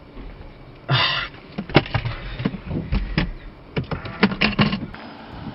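Irregular clicks and knocks of things being handled in a car cabin, with a short rustle about a second in.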